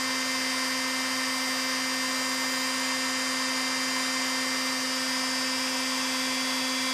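A small electric motor running steadily: an even whirring hum with a hiss over it, unchanging throughout.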